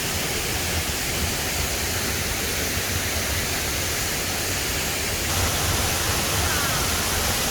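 Large jungle waterfall pouring heavily, a steady rush of falling water with no let-up; it is in full flow after recent storms. The rush grows slightly louder about five seconds in.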